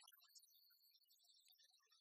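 Near silence, with faint scattered small clicks and ticks.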